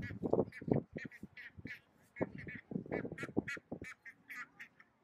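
A small flock of young ducks, about eight weeks old, quacking rapidly, about four short quacks a second. Wind buffets the microphone in loud gusts for about the first second and again from about two to four seconds in.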